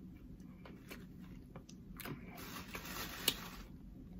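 Sounds of eating crispy fried chicken at the table: scattered faint clicks, then a crackly rustle lasting about a second and a half, with a sharp click near its end.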